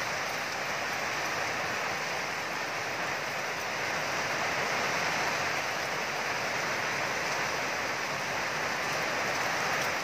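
Steady rain falling, a dense even hiss with no breaks.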